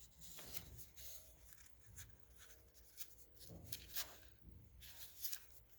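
Handling noise from unboxed gadget parts: soft rubbing and scattered light clicks as the DJI Osmo Pocket and its accessories are handled, at a low level.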